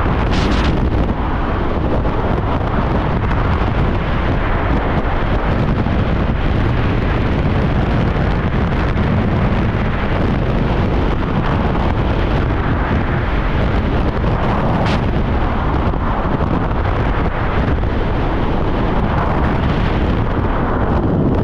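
Freefall wind rushing over the microphone during a skydive: a loud, steady, unbroken rush of air, with two brief higher flutters, one near the start and one about two-thirds of the way through.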